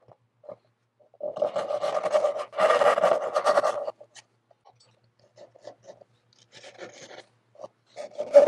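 Japanese ryoba pull saw cutting a tenon in pecan by hand: quick rasping strokes, loudest for a few seconds near the start, then lighter, shorter strokes, with a louder run again near the end.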